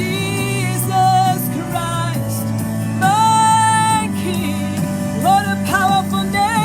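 Worship song: a voice singing long held and gliding notes over a band's steady accompaniment.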